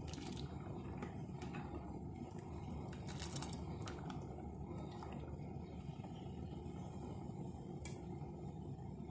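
A pot of pasta at a rolling boil, the water bubbling with a steady low rumble, with a few faint clicks as a spoon stirs the macaroni.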